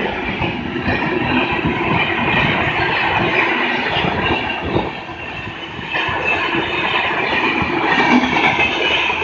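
Poorva Express passenger train running through a station at speed, its coach wheels clattering rapidly over the rail joints in a loud, steady rumble that dips briefly about five seconds in.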